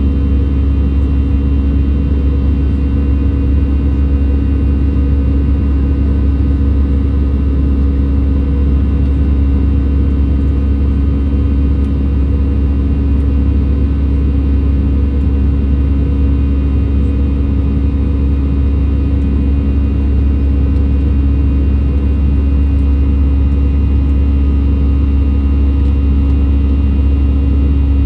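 Airbus A320 cabin noise in flight, climbing through cloud: the engines and rushing air make a loud, steady deep rumble with constant humming tones over it.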